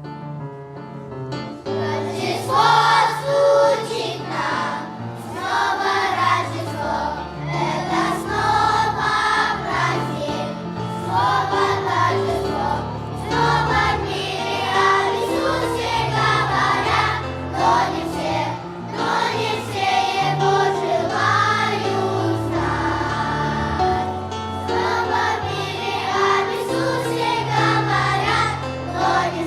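Junior children's choir singing a Christmas song in Russian over piano accompaniment. The voices come in about two seconds in, after a short piano introduction.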